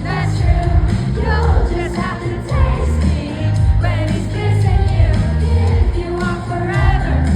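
Live pop concert music: a female singer over a loud band with heavy bass, as heard in the arena.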